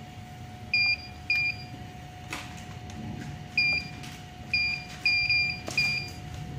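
HMI touchscreen panel giving short, high confirmation beeps as its buttons are tapped: seven beeps at uneven intervals, two of them close together near the end. A steady faint high hum runs underneath.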